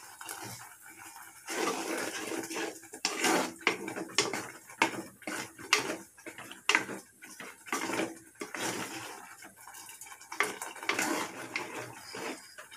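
A spoon stirring and scraping in a clay pot of mango thokku, with jaggery being mixed in. The stirring is faint at first, then from about a second and a half in gives frequent knocks and clinks against the pot.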